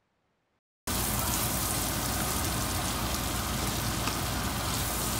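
Beef liver, onions and green peppers sizzling in a frying pan, a steady hiss with a few faint pops that starts suddenly about a second in.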